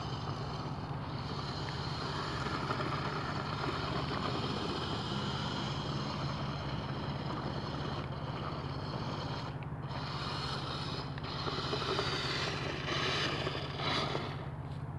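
Toy-grade RC truck's electric motor and gearbox whirring steadily as it drives over snow, swelling a few times near the end.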